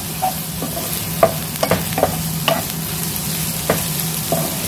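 Sliced onions sizzling in hot oil while a wooden spatula stirs them, knocking and scraping against the pan again and again. A steady low hum runs underneath.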